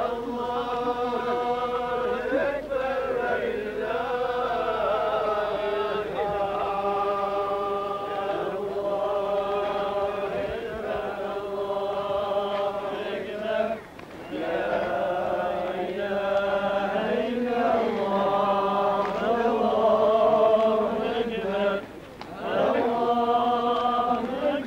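A group of men chanting a Muslim religious chant in unison, holding long drawn-out notes, with brief pauses for breath about 14 and 22 seconds in.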